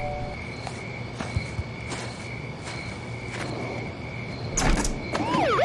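Quiet night ambience with a steady, high cricket-like chirr and a few soft clicks. A louder knock comes near the end, and then a security alarm siren starts wailing in fast rising-and-falling sweeps, a little over two a second.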